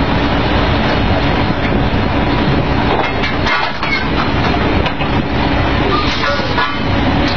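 Drilling rig machinery running loud and steady, with a few metallic clanks and knocks from drill pipe and tongs being handled on the rig floor, about three seconds in and again around six seconds.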